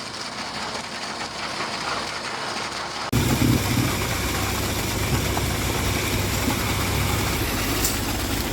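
Engine of a concrete pump truck running steadily during the pour. About three seconds in the sound changes abruptly to a louder, steady deep hum.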